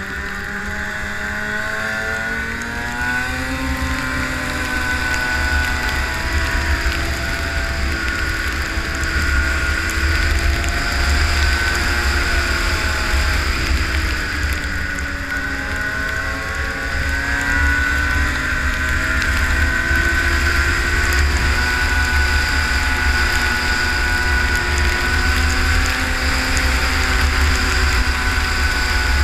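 Arctic Cat ZR 500 snowmobile engine running while riding along a trail, its pitch climbing and falling as the throttle and speed change. A steady high whine and a heavy low rumble run under it.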